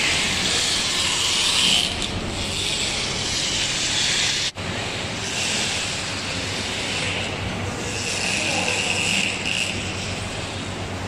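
Steady rushing, hissing workshop noise in a tyre shop, with a very short dropout about four and a half seconds in.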